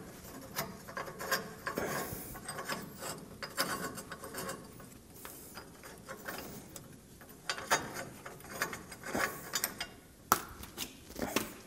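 Hand ratchet wrench clicking in quick, irregular runs as a nut on the truck's front-suspension radius arm is turned.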